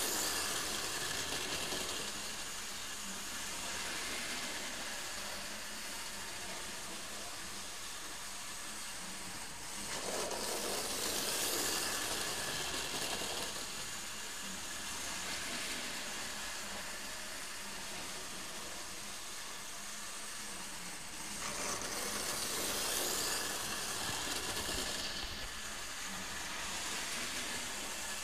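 OO gauge model train, a model of Stephenson's Rocket with three carriages, running around the layout: a steady whirring rattle of its small electric motor and metal wheels on the track. It grows louder twice, for a few seconds each time, as the train passes close by, about ten seconds in and again a little past twenty seconds.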